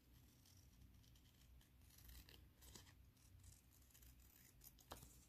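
Scissors cutting a sheet of sticker paper by hand: faint, scattered snips with light paper rustling.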